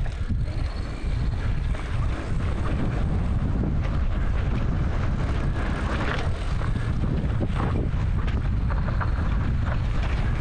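Enduro motorcycle running along a dirt trail, with heavy wind buffeting the microphone and covering the engine.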